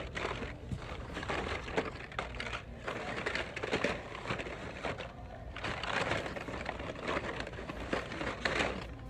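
Carded Hot Wheels blister packs, card backs with plastic bubbles, rustling, crinkling and clacking against each other and the cardboard box as a hand rummages through a pile of them.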